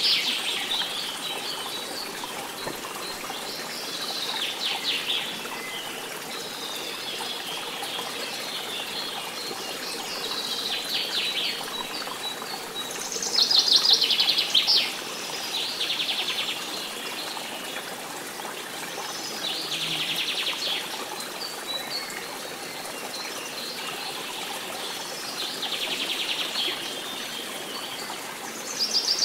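Songbirds singing short trilled phrases every few seconds, loudest about 14 seconds in and again at the very end, over a steady hiss of running water.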